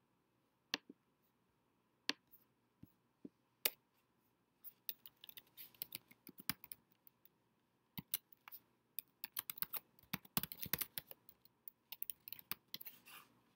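Computer keyboard typing a search query: a few separate key clicks in the first few seconds, then quick runs of keystrokes for most of the rest.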